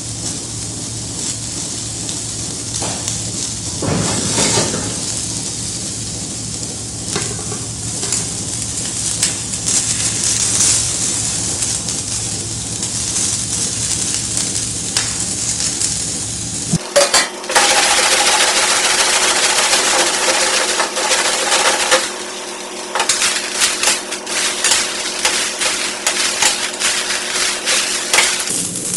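Vegetables sizzling in a hot steel wok, with metal utensils and pans clinking and scraping against it. A second batch of vegetables is tipped in from another pan, and the sizzling grows loud for several seconds past the middle before settling into stirring and tossing.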